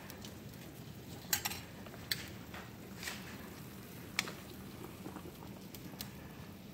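Pot of ribs at a rolling boil, bubbling steadily, with a few sharp clicks of tongs knocking against the pot as the meat is turned, the loudest about a second and a half in and just past four seconds.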